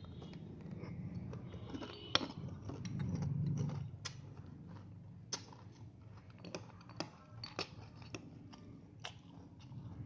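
Close-up chewing of crunchy honey cereal, with irregular sharp crunches.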